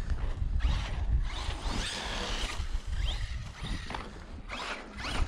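Wind buffeting the microphone, with a crunching, scraping hiss as an Arrma Kraton 6S brushless RC monster truck drives over snow and asphalt.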